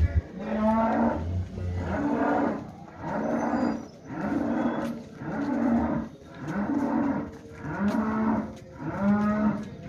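A cow mooing over and over in short calls, about one a second, nine in all. A brief knock right at the start.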